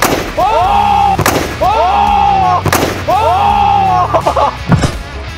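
A football kicked hard and smashing through a thin wooden board with a loud bang, followed by several more sharp bangs about every second and a half, each with a falling, swooping tone after it.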